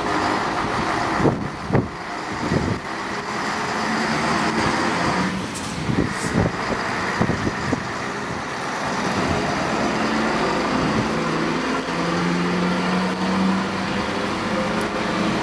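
Heavy recovery truck's diesel engine running as it pulls a towed truck tractor unit across the yard, with a few low thuds in the first few seconds. The steady engine hum grows stronger about two-thirds of the way through.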